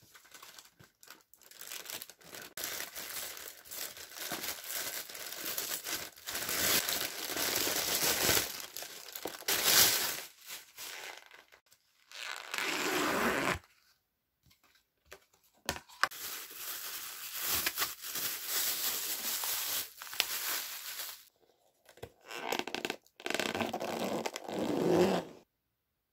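Plastic film being torn and crumpled off takeout food containers, a crinkly tearing rustle that comes in several spells with short pauses between them.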